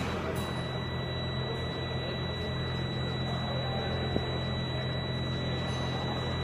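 Steady machine hum with a thin, even high-pitched whine over it; a single small click about four seconds in.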